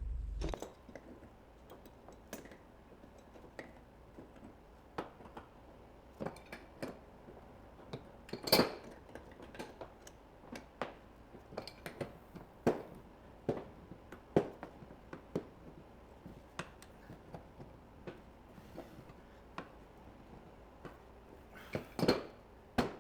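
Scattered light clinks and knocks of brass pipe fittings and hand tools being handled on a workbench, irregular and unhurried, the loudest about eight and a half seconds in.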